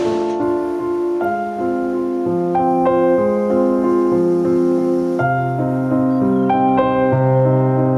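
Background music: a piano waltz of held chords that change every second or so, with deeper bass notes coming in about five seconds in.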